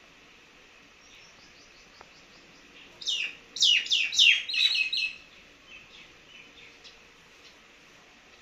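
A bird calling: a quick run of about six loud chirps about three seconds in, each sweeping down in pitch, with fainter chirps before and after.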